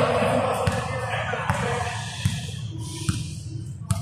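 Indistinct voices of players and onlookers echoing in a large sports hall, with a handful of sharp knocks, roughly one a second.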